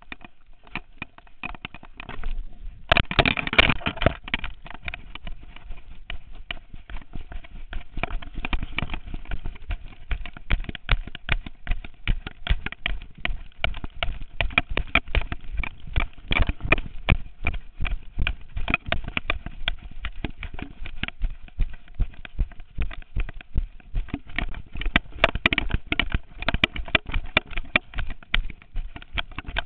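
Rapid, uneven knocking and rattling from a camera strapped to a black Lab puppy's harness, jolted with each stride as the dog trots. It grows louder about three seconds in.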